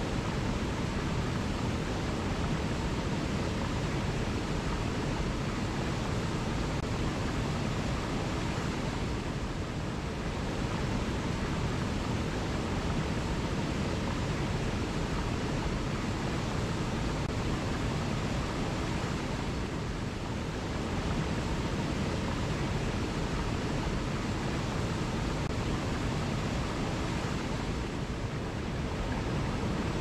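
Small waterfall cascading over boulders into a rock pool: a steady rush of falling water.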